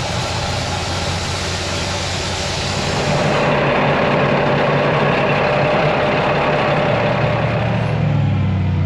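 Heavy diesel engine idling steadily under a broad mechanical noise, its low hum growing clearer near the end.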